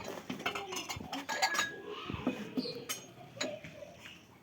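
Irregular light clinks and taps of small household objects, scattered through the few seconds.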